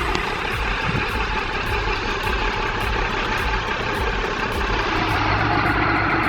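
Heavy machinery engine running steadily, with a low rumble under dense mechanical noise.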